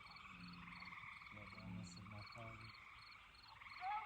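A chorus of frogs calling steadily, in fast, even pulses, with faint low voices in the middle.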